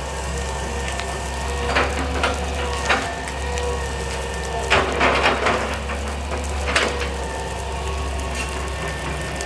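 Wood cracking and splintering in several sharp snaps, with a cluster of cracks about five seconds in, over a steady low engine drone.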